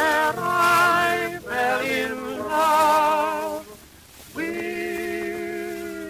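Male vocal duet with piano on an old 78 rpm record: the voices sing a wavering, wordless-sounding phrase, dip briefly, then hold a long sustained chord from about four and a half seconds in.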